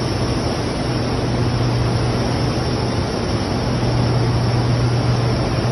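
Loud, steady running noise of a Comexi FB 2108 gearless central-drum flexographic printing press in operation, with a constant low hum underneath.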